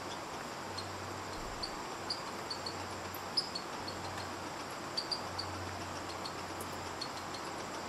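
Outdoor ambience: a steady, high-pitched insect trill over an even hiss, with short, faint high chirps scattered throughout.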